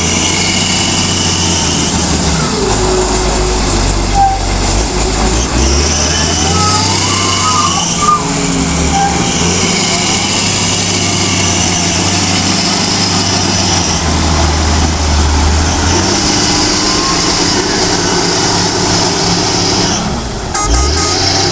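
Lonking wheel loader's diesel engine running under load, its speed rising and falling several times as the bucket is raised, tipped and lowered and the loader moves off.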